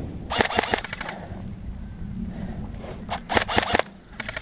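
Airsoft electric rifles firing rapid full-auto bursts: a rattling burst about half a second in, another just after three seconds, and a third starting near the end.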